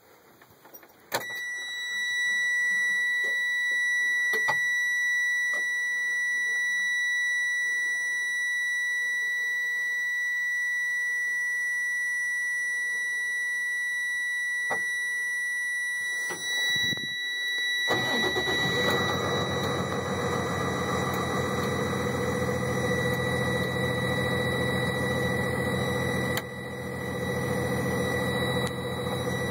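Freightliner M2's low-air-pressure warning buzzer sounding a steady high tone from about a second in, the sign that the brake air tanks are still below about 60 psi. After about sixteen seconds the starter cranks briefly and the cold 6.7 Cummins ISB diesel fires and settles into idle, with the buzzer still going over it.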